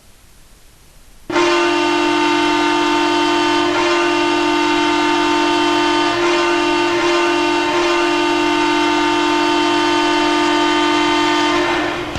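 NHL arena goal horn, the air horn that signals a goal, sounding one long steady blast of about ten seconds. It starts about a second in after a short lull.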